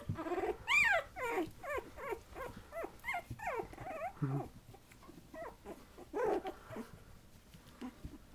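Patterdale terrier puppies about three weeks old whining and squeaking: many short high rising-and-falling cries in quick succession, loudest about a second in, thinning out in the second half.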